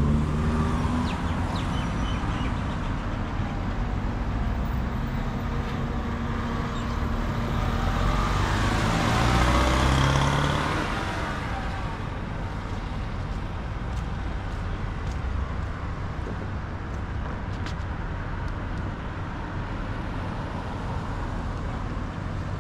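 Road traffic: cars passing close on a city street, one passing louder about nine seconds in, after which it settles to a steadier, lower traffic noise.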